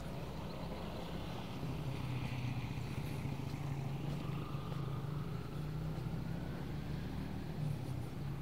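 Honda ADV150 scooter's single-cylinder engine running at low riding speed, a steady hum whose pitch dips slightly and then rises again with the throttle.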